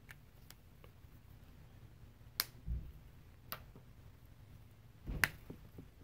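Plastic felt-tip marker caps snapping on and off, with markers set down on a wooden table: several sharp clicks and a couple of soft low knocks, the loudest click about two and a half seconds in and another near the end.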